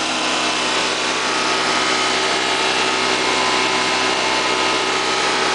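Freshly rebuilt Honda EV6010 generator running steadily on its first run after the rebuild: a constant engine hum with steady tones and no change in speed.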